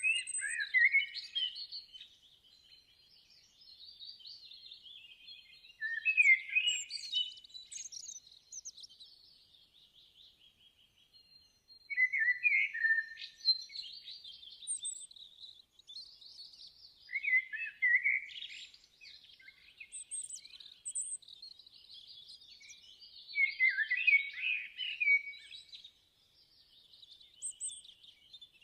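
Songbirds chirping and twittering, with a louder burst of song about every six seconds and quieter warbling in between.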